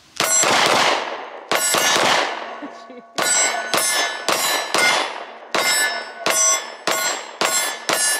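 Springfield XD Mod 2 service-model 9mm pistol firing about a dozen shots, two slow ones and then a quicker string of about two a second. Each shot is followed by the ringing clang of a steel target being hit.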